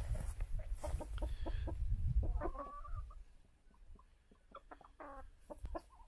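Domestic chickens clucking: a few short clucks about two and a half seconds in and again near five seconds, over a low rumble in the first half.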